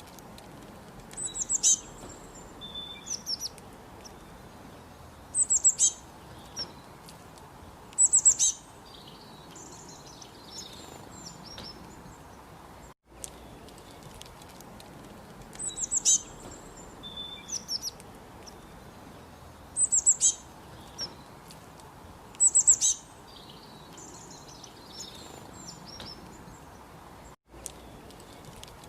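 Small birds chirping in short clusters of high, quick notes over a steady background hiss. The same stretch of calls repeats about every fourteen and a half seconds, with a brief dropout at each join, as in a looped recording.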